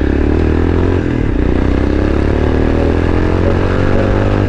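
Royal Enfield Himalayan's single-cylinder engine running under way, its pitch rising slowly as the bike picks up speed.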